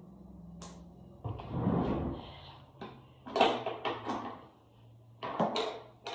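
Three short clusters of knocks and sliding clatter, like household things being handled or a drawer moved, over a faint low hum.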